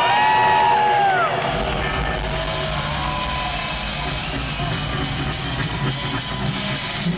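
Rock drum kit played live in a drum solo, with crowd whoops and whistles over it in the first second or so; from about a second and a half in, dense low drumming takes over.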